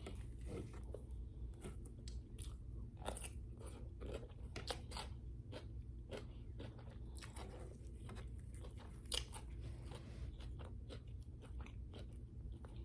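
Close-miked eating: a person biting and chewing crunchy food, with irregular crisp crunches throughout and a sharper crunch about nine seconds in.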